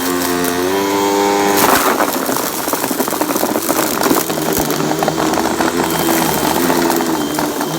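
Hoover vacuum cleaner running with a steady motor whine. The whine rises slightly, then about two seconds in its pitch drops and a rough, rattling noise joins it.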